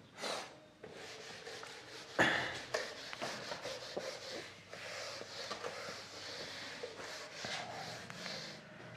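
Whiteboard eraser rubbing across a whiteboard, wiping off marker writing in a run of rubbing strokes, with a louder scrape about two seconds in.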